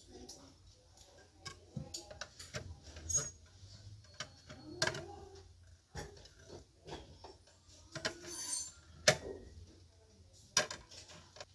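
Plates being picked up, turned over and set back down on a shelf: a scattering of light clicks and clacks, with the sharpest knocks about nine and ten and a half seconds in.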